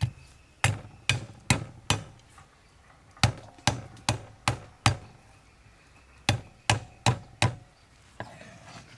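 Heavy cleaver chopping ginger on a thick wooden chopping block: sharp knocks about two to three a second, in three runs of four or five with short pauses between.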